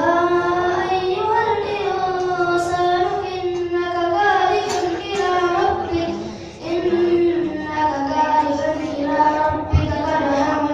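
A child reciting the Qur'an in the melodic qiroah (tilawah) style, drawing out long ornamented notes that slide up and down in pitch, with a brief pause for breath partway through.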